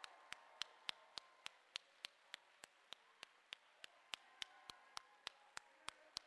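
Faint, evenly paced hand claps of one person, about three and a half claps a second, over near silence.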